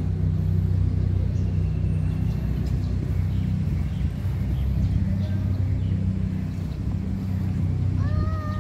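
Steady low rumble of motor traffic, with an engine hum holding one pitch throughout. A short high-pitched sound comes in near the end.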